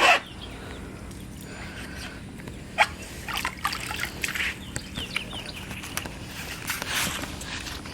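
Water sloshing and splashing in a bucket as Crocs are washed in it, a short splash at the start and then a run of irregular splashes.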